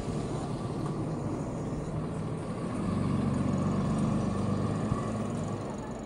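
Steady road traffic noise, with a large vehicle's engine, a bus, running close by from about three seconds in until shortly before the end, where it is the loudest sound.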